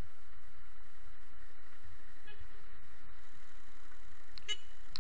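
Traffic at a junction: a steady low rumble of engines, with a short car-horn toot about four and a half seconds in.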